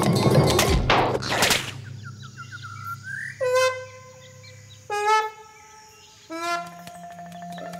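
Cartoon sound effects: a loud whooshing rush, then quick rising chirps and three short honking calls about a second and a half apart, the last running into a steady held tone.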